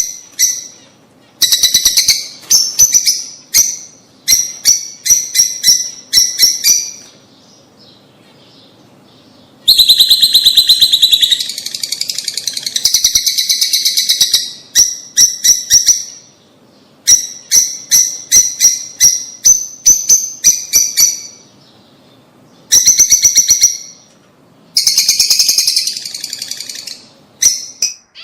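Lovebirds chirping: bursts of rapid, shrill chirps in quick strings, broken by short pauses, with a longer stretch of dense continuous chatter about a third of the way in.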